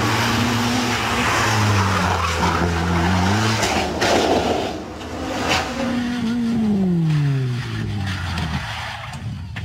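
Rally car engines revving hard, the pitch rising and falling with gear changes and a long fall as one car slows, over loud tyre noise and skidding. A few sharp knocks come near the middle.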